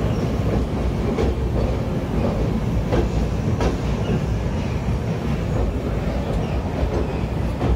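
Indian Railways passenger coaches passing close by on the adjacent track over a railway bridge: a steady rumble of wheels on rail, with a few sharp clacks as the wheels cross rail joints.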